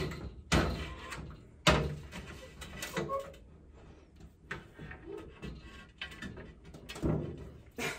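A glass cabinet shelf with a grow-light strip on it being wrestled into place, knocking against the cabinet frame: a few sharp knocks with softer rattling and scraping between them.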